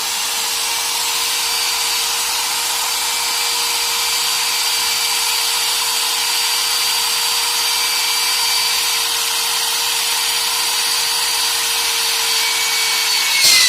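Bosch GBM 13-2 550 W electric drill running steadily with a whine as its bit bores slowly into an iron angle. It is switched off near the end and its pitch falls as the motor winds down.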